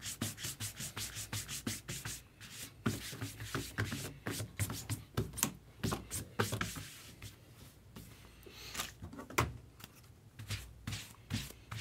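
Foil-wrapped trading card packs being handled and shuffled on a table: irregular crinkling and rubbing with many sharp crackles.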